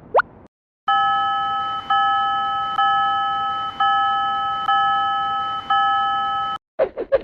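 Japanese railroad crossing warning bell ringing, about one strike a second, each ring carrying on until the next, six strikes before it cuts off suddenly.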